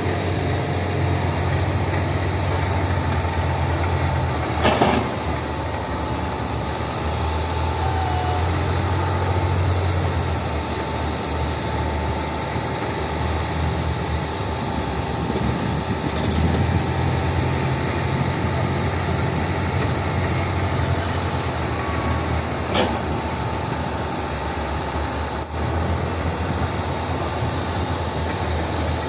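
Heavy diesel engines of a Hitachi hydraulic excavator and a loaded Hino Dutro dump truck running steadily, swelling and easing in places while the excavator works to free the truck bogged in soft soil. A few short knocks, the sharpest about 25 seconds in.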